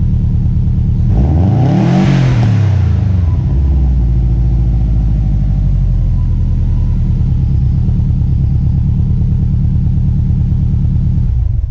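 Subaru WRX turbocharged flat-four, swapped into a 1993 Impreza, idling through an aftermarket catback exhaust. It is revved once about a second in, rising and falling over about two seconds, then settles back to a steady idle.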